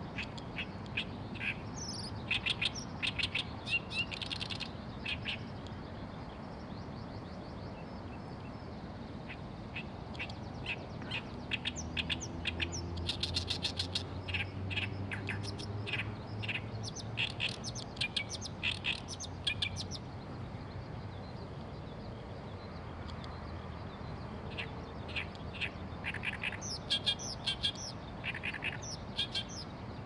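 Oriental reed warbler singing its loud, harsh song of rapidly repeated grating notes, in three bouts with pauses between. A low droning hum runs underneath around the middle.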